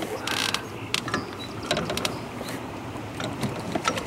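Fishing reel being cranked, with irregular mechanical clicks and rattles, while a hooked bass is fought in; a short rush of noise comes about half a second in.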